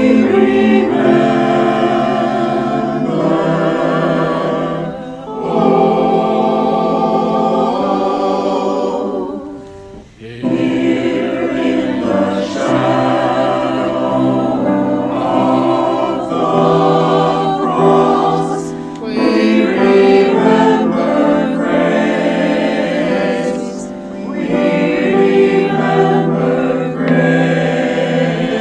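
A choir singing in long held phrases, with a short break about ten seconds in.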